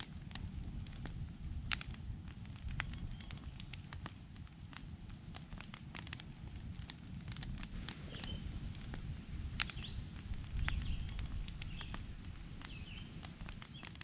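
An insect, most likely a cricket, chirping steadily at a high pitch, about two to three chirps a second. Scattered sharp clicks and a low outdoor rumble sit underneath.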